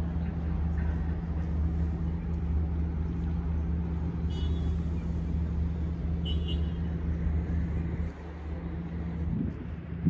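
A steady low mechanical hum with a constant pitch, which drops away about eight seconds in. Two brief high chirps sound in the middle.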